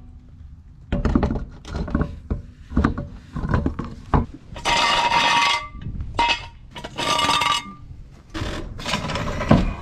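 Wheel being refitted to a car's hub: metal clinks and knocks of the wheel and lug nuts going on. About halfway through, and twice more near the end, a power tool runs in harsh bursts of about a second each with a steady whine, running the lug nuts down.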